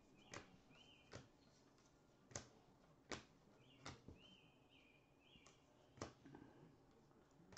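Stack of baseball cards being flipped through by hand, a short sharp click as each card is slid to the back, every second or so at an uneven pace. Faint high chirps repeat quietly behind the clicks.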